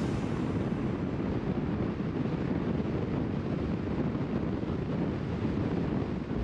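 Steady wind and road noise from a car driving along a city street.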